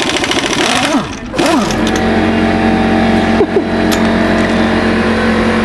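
Pneumatic impact wrench hammering in a rapid rattle on a lug nut for about a second, then stopping. An air compressor then runs with a steady hum.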